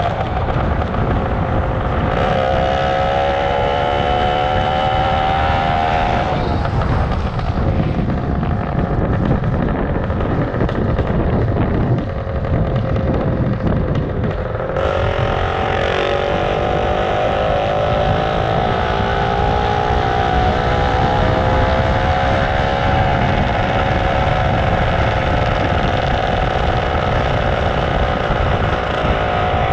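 Superbike engine running on the move, its note rising slowly under throttle, dropping away for several seconds in the middle, then rising again and easing off, over constant wind rumble on the microphone.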